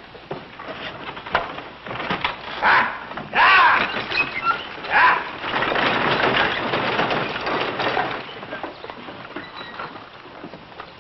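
Horse-drawn wooden wagon moving off: wood creaking and rattling with hoofbeats, a short high-pitched cry a few seconds in, then fading away.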